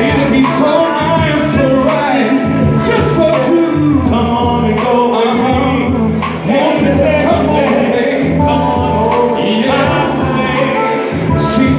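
Male vocal group singing live into microphones over amplified backing music with a steady beat.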